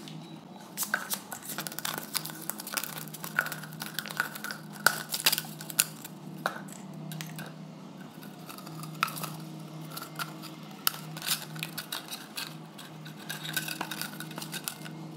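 Thin plastic bottles being handled: irregular clicks, taps and crinkles, some sharper than others, over a steady low hum.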